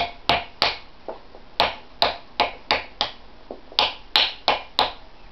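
Hammer blows driving a wedge into the slit at the top of an axe handle to spread it in the head. About a dozen sharp strikes in three quick runs, roughly three a second.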